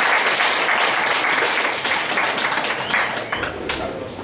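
Lecture audience applauding at the end of a talk. The clapping thins out near the end.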